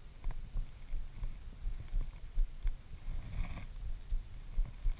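Wind buffeting the microphone of a body-worn action camera: a low, uneven rumble, with scattered small clicks and knocks of rod and reel handling.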